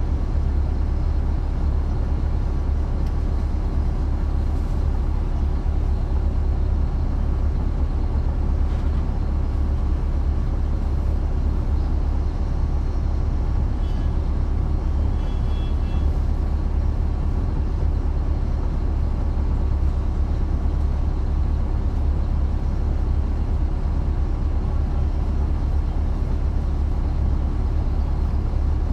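Caterpillar C13 ACERT inline-six diesel of a 2009 NABI 416.15 transit bus running at a steady pitch, heard from the rear seats inside the bus as a strong, even low drone. A brief faint high tone sounds about halfway through.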